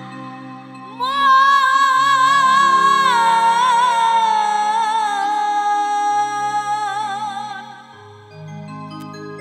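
Female Baul folk singer holding a long high note with vibrato, which glides down about three seconds in and settles lower before fading out. Underneath are low sustained accompaniment notes that change pitch in steps.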